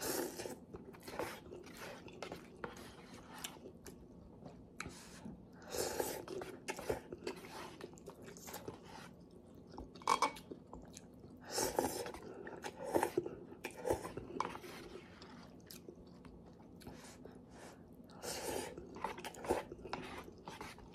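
Close-up mouth sounds of eating instant tonkotsu ramen: noodles slurped in from chopsticks and chewed, in irregular bursts of slurping with quieter chewing between.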